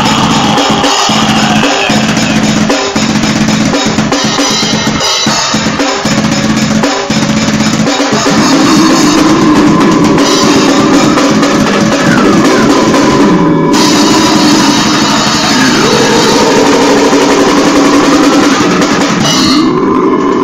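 Acoustic drum kit played hard and fast in a hardcore style: bass drum, snare and cymbal crashes in a dense, driving beat. Pitched music with sliding notes plays along underneath.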